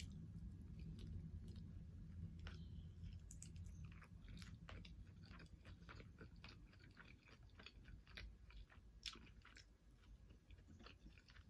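Faint chewing: a person eating at close range, with scattered small wet mouth clicks and light crunches.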